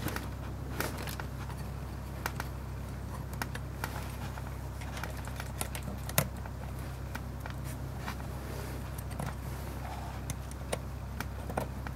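Scattered small metal clicks and taps of a flat steel ring wrench being fitted to and turned on a Leica M3's winding lever, the sharpest click about six seconds in.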